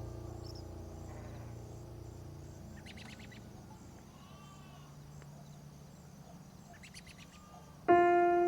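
Background music fading out, then small birds chirping in two short quick bursts with a quiet gap between them, then piano music starting near the end.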